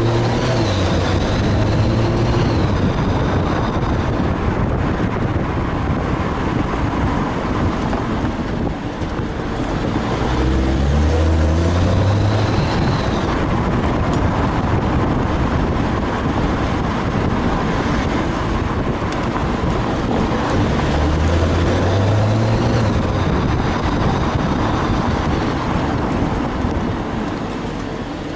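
BMW 135i M Sport with a DCT gearbox being driven, its engine note rising three times as it pulls, over steady road noise. A thin high whine rises and falls along with each rise. The owner cannot place this weird noise, which follows engine or gearbox speed rather than road speed.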